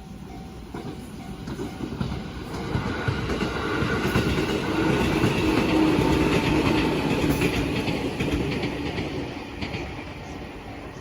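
A JR train passing over a level crossing, its wheels clattering over the rail joints. The sound swells to a peak about six seconds in and then fades, with the crossing's warning bell ringing in short repeated tones under it.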